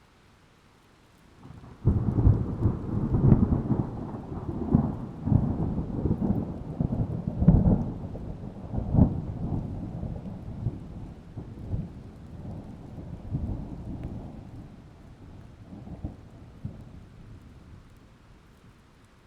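A sudden thunderclap about two seconds in rolls on as a long, low rumble with repeated sharp cracks. It slowly fades out over some fifteen seconds, over the faint steady hiss of rain.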